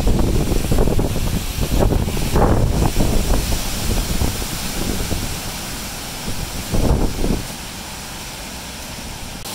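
Hurricane Sally's wind gusting through trees with driving rain, buffeting the phone's microphone in heavy swells. The gusts are strongest at the start and again about seven seconds in, easing in between and near the end.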